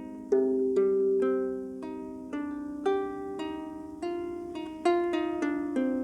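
Double diatonic harp plucked by hand: a slow, unhurried run of single notes, each ringing on under the next.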